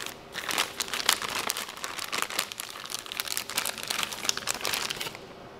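Thin plastic bag crinkling irregularly as hands unwrap a new diesel injector from it; the crinkling stops near the end.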